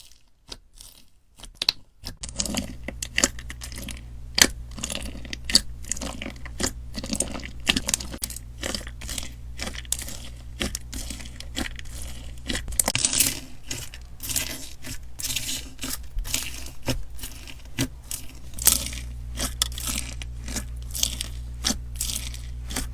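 Slime being squeezed, pressed and stretched by hand, giving a dense run of irregular crackles, pops and squelches that starts about two seconds in.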